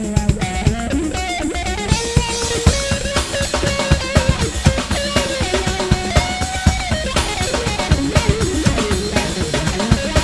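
Cantopop song playing, with a drum kit beating out frequent sharp hits under guitar and a wandering melodic line.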